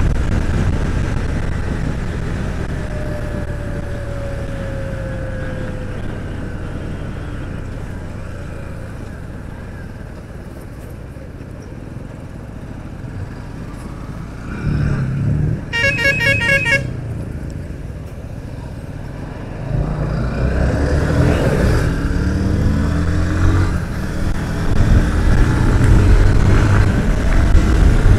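Motorcycle engine and wind noise from a ride, growing quieter over the first part as the bike slows for speed breakers, then louder again in the last third as it picks up speed. A vehicle horn honks for about a second near the middle.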